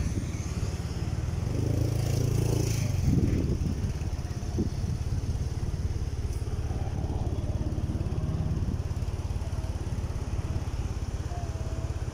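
Motorcycle engine running with a steady low pulsing hum.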